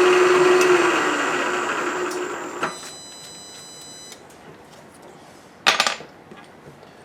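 Milling machine spindle running with a spotting drill cutting into a stainless steel plate; the cutting sound fades away over the first two to three seconds. A click follows, and about six seconds in there is a short, sharp metallic clank.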